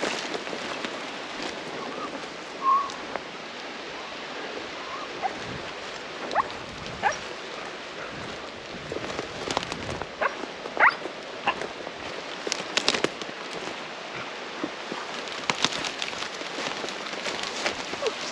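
Tracking dog on a leash giving several short, rising whines over steady rustling of dry grass and brush underfoot.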